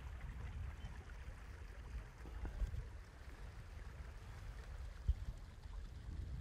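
Outdoor ambience: a low, uneven rumble with a couple of brief faint thumps.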